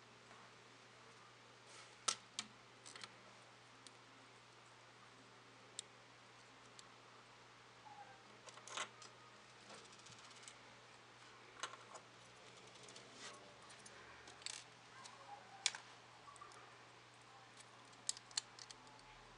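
Plastic Lego bricks being handled, snapped together and set down on a wooden table: irregular sharp clicks and clacks, with a faint steady hum underneath.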